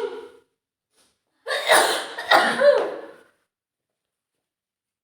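A woman with a heavy cold sneezing. The tail end of one sneeze fades out, and about a second and a half in comes a loud burst of sneezing lasting about two seconds, with a voiced 'choo' near its end.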